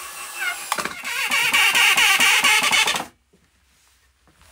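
Cordless drill driving a screw into a wooden board. The motor runs for about two seconds with a rapid pulsing, then stops abruptly about three seconds in.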